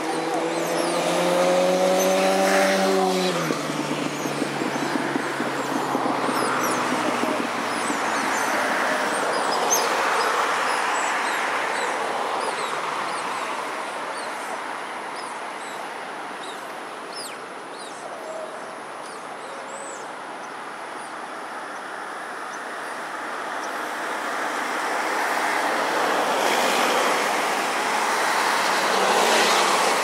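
Urban traffic noise swelling and ebbing as vehicles pass. A pitched mechanical whine slides down in pitch and stops about three seconds in.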